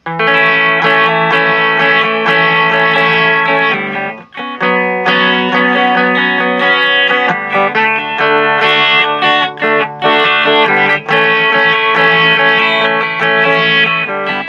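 Electric guitar played through a Joyo DC30 guitar amplifier with effects: sustained chords and notes ring out, with short breaks about four and ten seconds in.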